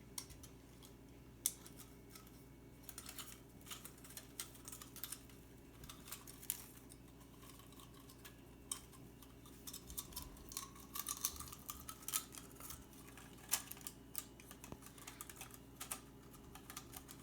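Light, irregular clicks and taps of small plastic camera-housing parts and ribbon cable being handled, with a faint rising squeak about ten seconds in.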